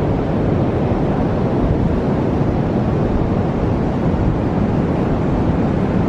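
Strong onshore wind buffeting the microphone in a steady rumble, with ocean surf washing behind it.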